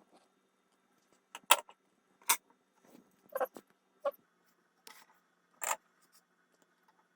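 About half a dozen sharp clicks and taps of small hard objects being handled, at irregular intervals, over a faint steady hum.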